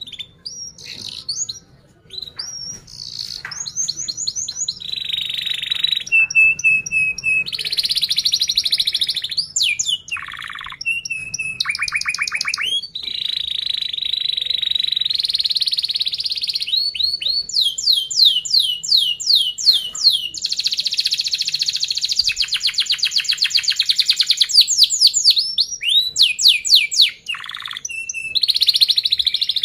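Domestic canary singing a long, nearly unbroken song: quick repeated chirps alternate with fast trills and dense, tight rolls.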